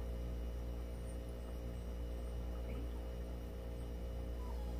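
Steady low electrical hum, the kind of mains hum picked up on a recording, running evenly, with only a faint brief sound about three seconds in.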